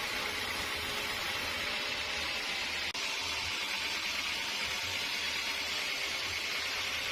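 Sawmill machinery running with a steady hissing noise over a low rumble, broken by a brief drop about three seconds in.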